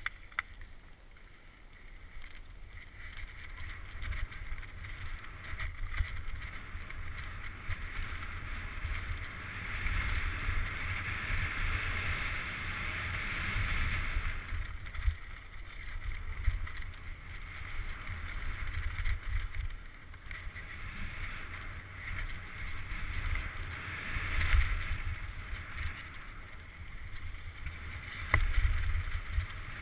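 Wind buffeting a helmet-mounted camera's microphone during a downhill mountain-bike descent, with the hiss of tyres rolling over dirt and gravel that swells and fades with speed, and a few sharp knocks from the bike over rocks.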